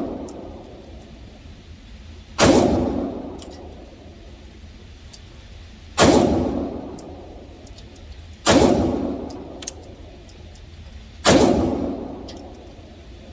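Four single shots from a Glock 43X 9mm pistol, spaced about two and a half to three and a half seconds apart. Each shot is followed by an echoing tail that dies away over a second or so, with faint light clicks between the shots.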